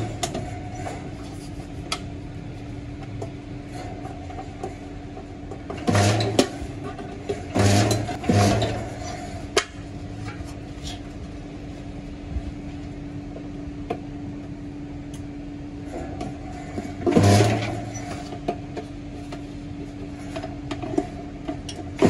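Metalworking machinery running with a steady hum, broken by four short, loud bursts with a low buzz in them: three within a few seconds of each other, and one about ten seconds later.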